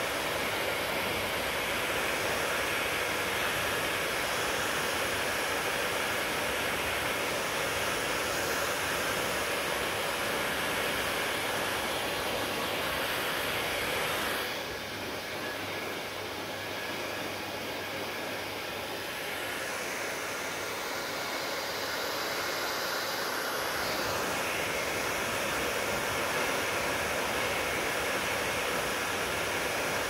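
Handheld hair dryer running steadily, blowing air onto long wet hair held close by. About halfway through, the sound drops a little and turns duller for several seconds, then comes back to full strength.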